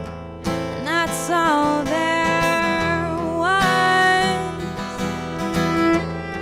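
A song performed with strummed acoustic guitar and a voice singing a melody, with held, sliding sung notes about a second in and again around three and a half seconds in.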